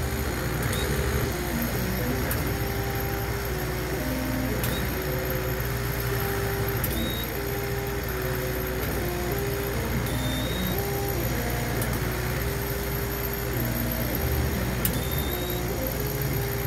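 Orion 50-watt laser cutter at work on plywood: its motors whine in short held tones that jump in pitch every fraction of a second as the head traces the cut. Under them runs a steady hum and hiss.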